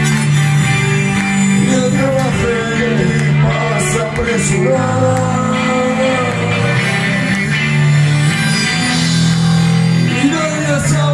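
Live rock band playing: Les Paul-style electric guitars and a drum kit with a singer's voice over them.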